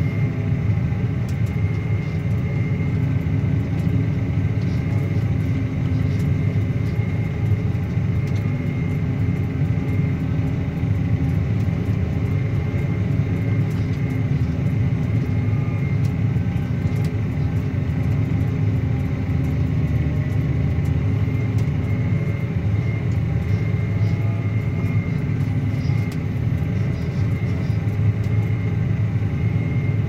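Claas Axion 850 tractor's six-cylinder diesel running steadily under ploughing load, a deep even drone with a thin high whine held over it.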